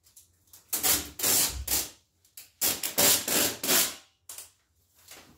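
Adhesive tape being pulled off the roll in several rasping pulls, each lasting up to about a second, with short pauses between.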